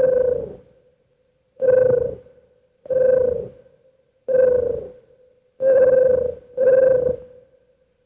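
Star Trek original series electronic sound effect: a pitched beep-like tone repeated six times at slightly uneven intervals, each burst under a second long and sagging a little in pitch as it fades.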